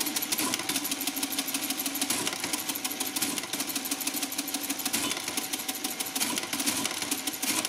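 Facit CA1-13 electromechanical calculator running an automatic long division by repeated subtraction. Its electric motor drives the mechanism through rapid cycles, giving a fast, even clatter over a steady hum.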